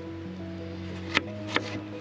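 Soft background music with held notes. A little after a second in, a knife makes two quick chops through onion onto a wooden cutting board.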